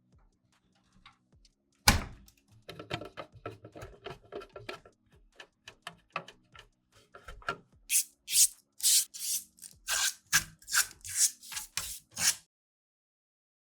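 Hands handling PC parts and their packaging close to the microphone. A sharp knock, then a run of small clicks and rustles, then about a dozen quick scraping strokes in the second half that stop a second before the end.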